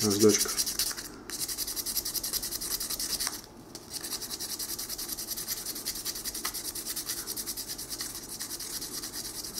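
Sandpaper rubbed in quick, even back-and-forth strokes over a small soldered brass ice-fishing lure, smoothing down the excess solder. The strokes pause briefly about three and a half seconds in, then go on.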